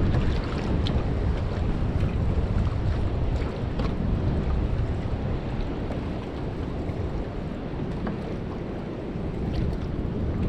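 Wind buffeting the microphone over a choppy sea, with a steady low rumble and scattered small splashes and water slaps around the hull.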